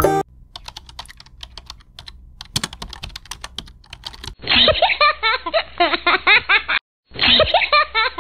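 Rapid computer-keyboard typing clicks for about four seconds, then loud laughter that breaks off briefly and starts again.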